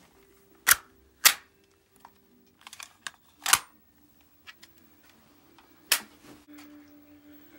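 Four loud, sharp mechanical clicks and snaps, with a few fainter clicks between, as a CO2 air pistol and its magazine are handled and loaded.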